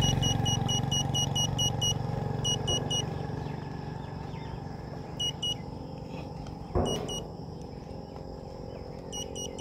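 Satellite finder meter beeping its signal tone: short high beeps about five a second in a run, then breaking into pairs and single beeps with gaps, and picking up again near the end, as the signal locks and drops while the dish is moved. A low steady rumble runs underneath.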